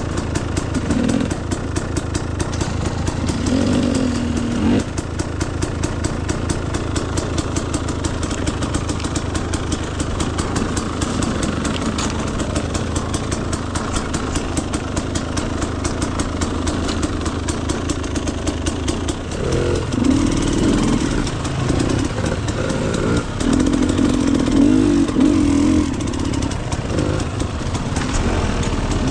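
Dirt bike engine running at low speed along a trail, a steady rapid pulsing, picking up in several short surges of throttle in the last third.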